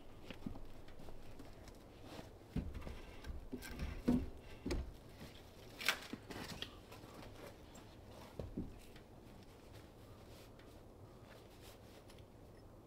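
Wooden poles knocking and thumping as they are handled and laid on a log cabin roof: a handful of scattered knocks, the loudest about four and six seconds in, then quiet work.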